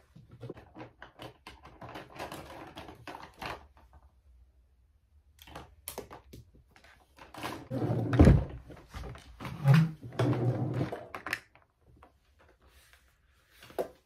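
Makeup tubes, pencils and compacts clicking and rattling against one another in a vanity drawer organiser as they are rummaged through, in two spells of handling, with a heavy thunk about eight seconds in.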